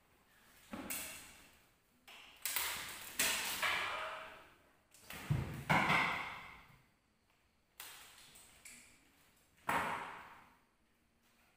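About eight sharp metallic strikes, some in quick pairs, each ringing and fading over about a second, the loudest around the middle. These are the dalang's keprak, metal plates on the puppet box, struck as accents to the shadow-puppet movements.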